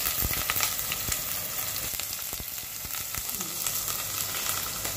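Chopped garlic sizzling in hot cooking oil in a pot, with scattered small pops throughout: the garlic being sautéed.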